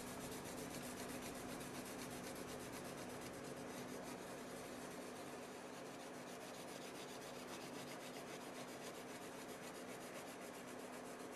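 Prismacolor colored pencil rubbing steadily back and forth on paper, a faint, continuous scratchy sound as a new colour is layered over earlier ones to blend them.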